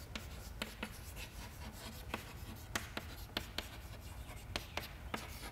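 Chalk writing on a chalkboard: faint, irregular short taps and scratches of the chalk, about three a second, as words are written out.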